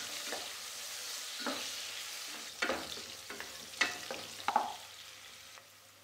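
Sliced onions frying and sizzling in hot oil in an aluminium pressure cooker while being stirred with a wooden spatula, which knocks sharply against the pot several times. The sizzle fades toward the end.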